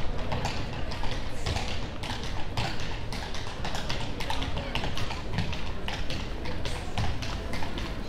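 Horse-drawn carriage: the horse's hooves clip-clopping on the street as it walks, a run of sharp, uneven clops several times a second over a low rumble.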